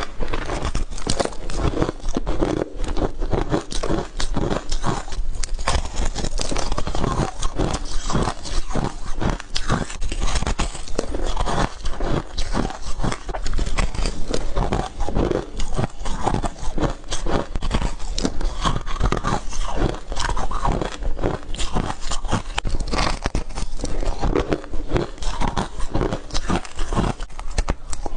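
Ice being bitten and crunched close to the microphone: a steady run of sharp cracks and crunches, several a second.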